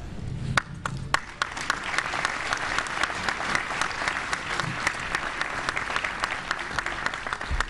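Audience applauding: a few single claps about half a second in, building into steady clapping from many hands.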